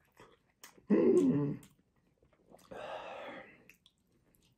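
A man's short, low hum in the throat about a second in, then a longer breathy exhale near the middle. Faint wet clicks come from soft roasted squash being torn apart by hand.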